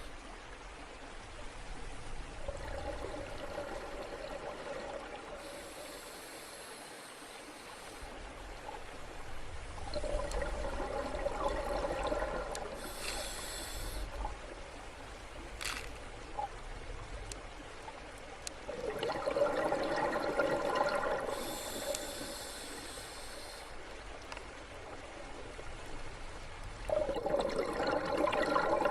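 Scuba diver breathing underwater: about every eight seconds a burst of exhaled bubbles, followed by the hiss of the regulator on the next breath in, over a low underwater rumble.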